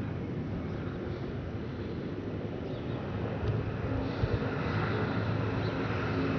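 Airbus A330-300 jet engines heard from the ground as the airliner climbs away: a steady low rumble that grows a little louder about four seconds in, with wind buffeting the microphone.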